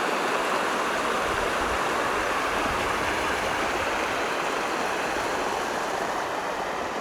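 Small waterfall running over rock in a steady rush of water, at low late-season flow.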